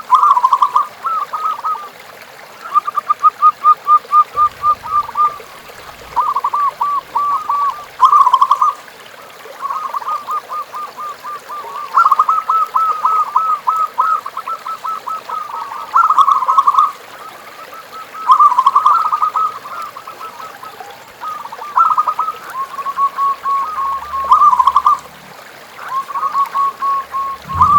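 Zebra doves (perkutut) cooing: phrase after phrase of rapid, staccato pulsed notes, each phrase lasting a second or two, with short pauses between them.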